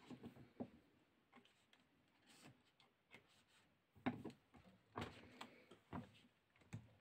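Faint, scattered clicks and knocks from a hand-operated stud-setting press and the leather-and-brass-wire crown band being handled and positioned under it, the knocks growing louder and more frequent from about four seconds in.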